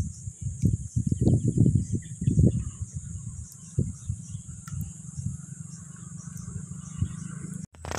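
A steady high-pitched insect drone from the surrounding mangroves, with irregular low buffeting noise on the microphone during the first two and a half seconds while the crab trap is handled.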